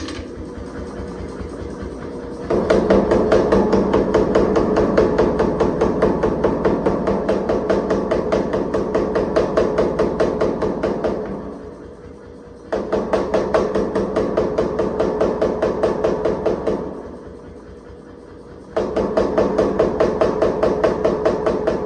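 Power hammer pounding a hot pattern-welded steel bar in three runs of rapid, even blows, several a second, each run lasting a few seconds. Between runs a quieter steady hum with a faint tone continues.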